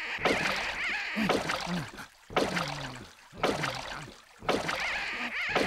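Cartoon sound of a rowboat being towed through the water by a rope: a rhythmic stroke repeated about once a second, each one starting sharply.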